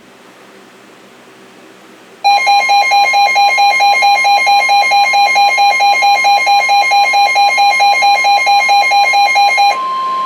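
Weather radio warning alarm starting about two seconds in: a loud pulsing beep, about five a second, over a steady high tone. Near the end the beeping stops and the steady alert tone carries on alone. It signals an incoming severe weather warning broadcast.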